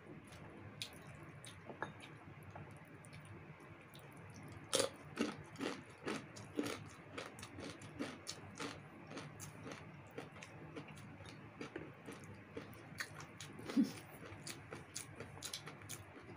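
Close-up eating sounds of two people chewing roasted chicken and crispy fried chicken skin: wet chewing, lip smacks and crunching. The crunches come thickest and loudest about five to seven seconds in.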